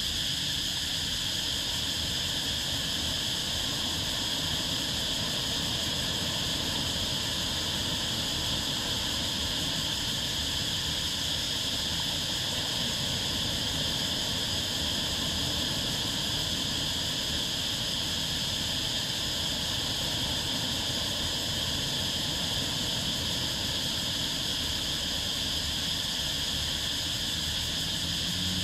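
Steady dusk ambience at a beach: a constant high-pitched insect drone with a low wash of surf underneath, with no breaks or changes.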